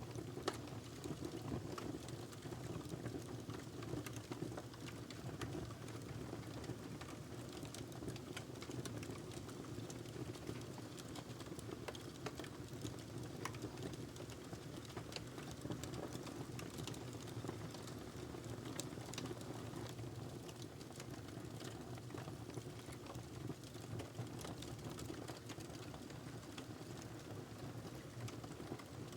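Wood fire burning in a fireplace: a steady low rush of flame with frequent small crackles and pops from the burning log.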